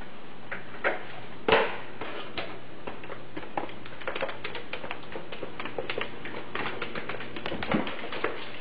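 A ferret scampering and playing with a small plastic toy on a hard floor makes a run of quick, irregular clicks and taps, with a louder knock about one and a half seconds in, all over a steady hiss.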